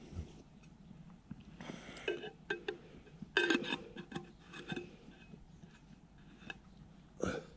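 A new thermos being handled: scattered clicks and knocks of its parts and mesh tea strainer, with a few louder ringing clinks about three and a half seconds in.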